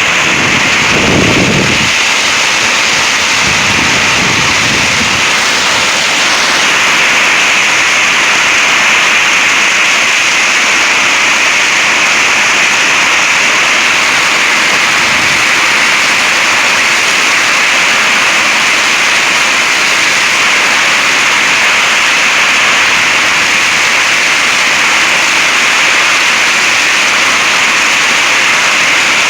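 Heavy rain and strong wind in a thunderstorm microburst: a loud, steady rush of wind-driven rain, with a couple of low rumbles in the first five seconds. The winds are guessed at 50 to 60 mph.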